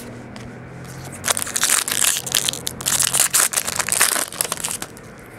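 Foil wrapper of a 2011 Bowman Draft baseball card pack crinkling and tearing as the pack is pulled open, a dense run of crackling from about a second in until near the end.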